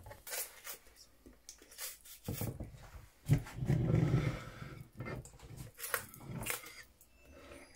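Cleaver knocking on a wooden chopping board as raw pork is sliced thinly, a series of irregular knocks. A rough, rasping noise runs for about a second starting three and a half seconds in.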